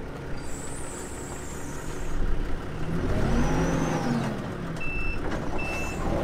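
Forklift engine running, revving up and back down between about two and four seconds in. From about five seconds in, a reversing alarm beeps steadily, roughly one beep every 0.8 seconds.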